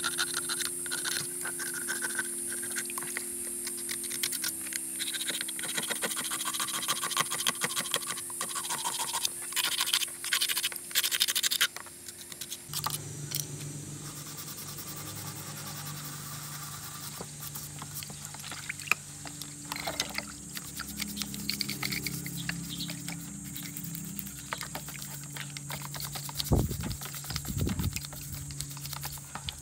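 Scraping and scratching with many small rapid clicks over a steady motor hum; the hum drops in pitch about halfway through.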